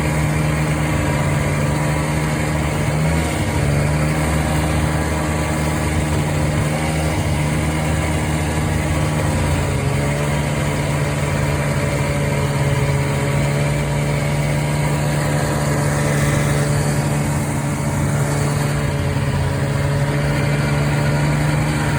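Arctic Cat Puma snowmobile's small fan-cooled two-stroke engine running steadily, its pitch wavering only slightly.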